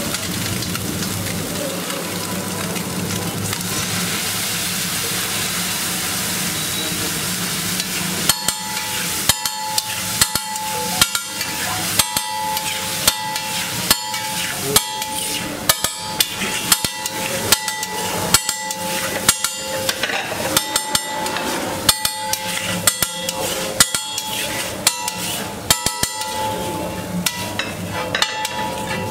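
Egg mixture sizzling on a hot flat steel griddle. From about eight seconds in, a metal spatula strikes the griddle over and over, roughly two ringing clanks a second, as it chops and mixes the egg.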